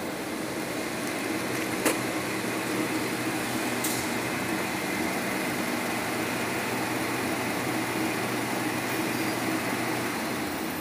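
Toilet paper production line machinery running: a steady hum with a faint high tone, and two sharp clicks about two and four seconds in.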